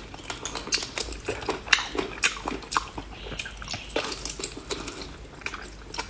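A person biting and chewing seafood close to the microphone: irregular crunches and wet clicks, a few each second.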